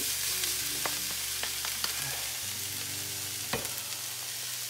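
Stir-fry vegetables and chicken sizzling in a frying pan as they are tossed with wooden utensils so that they just wilt, with a few light clicks of wood on the pan and a louder knock about three and a half seconds in.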